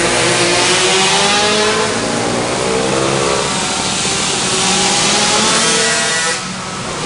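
Small minibike engines revving up and down as they lap, several at once, their pitch rising and falling in overlapping glides. The level drops briefly near the end.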